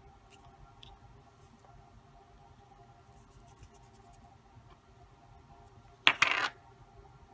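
Faint clicks and taps of fingers handling a small plastic Play-Doh star mould, then a sudden loud noise about six seconds in that lasts about half a second.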